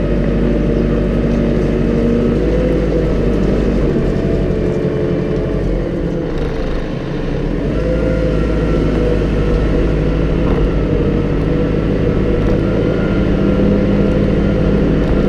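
JCB 541-70 Agripro telehandler's diesel engine running steadily as the machine drives, heard close up from outside the machine by its front wheel. The deepest part of the rumble drops away for a few seconds about four seconds in, then returns.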